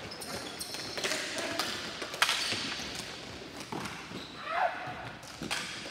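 Ball hockey play: a series of sharp clacks and knocks from sticks hitting the ball and the ball striking the rink boards, the loudest about two seconds in.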